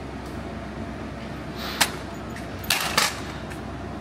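A sharp click a little under two seconds in, then a short clatter about a second later, as a used clutch disc is handled and turned over in the hand. A steady low hum runs underneath.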